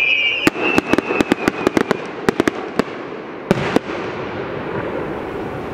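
Aerial fireworks: a falling whistle fades out in the first half second, then a rapid string of sharp bangs and crackles from the bursting shells over about three seconds, two big reports near the end of that run, after which the sound dies away into a fading rumble.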